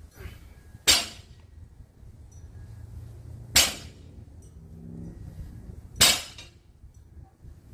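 Loaded barbell set down on a concrete floor three times, about two and a half seconds apart, during repeated deadlift reps: each landing of the plates is a sharp clanking impact with a short metallic ring.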